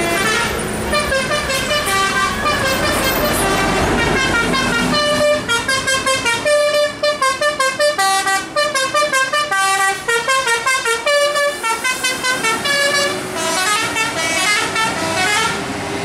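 Bus telolet horns playing a fast tune of short multi-tone notes. Low diesel engine rumble from a passing tour bus sits under the first five seconds or so.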